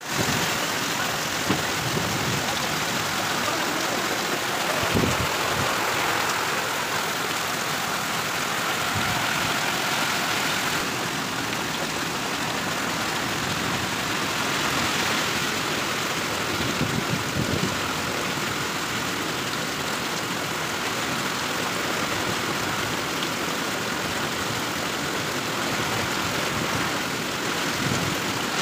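Severe storm: heavy rain and strong wind making a steady, loud rushing noise, with a few brief low thumps of gusts now and then.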